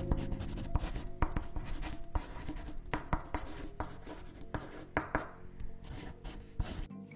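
Pen scratching on paper in quick, irregular strokes, the sound of handwriting.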